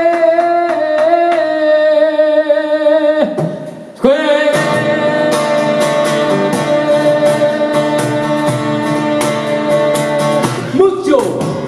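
Male voice singing long held notes over a strummed acoustic guitar. One sustained note breaks off about three seconds in, and a second long note follows over steady strumming. Near the end the voice slides down in pitch.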